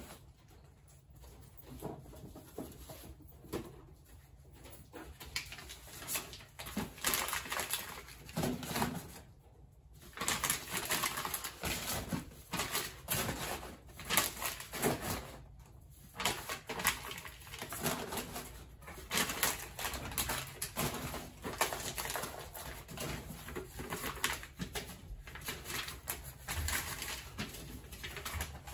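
Packing material and a cardboard box being handled: irregular crinkling and rustling of void fill with small knocks, pausing briefly a few times.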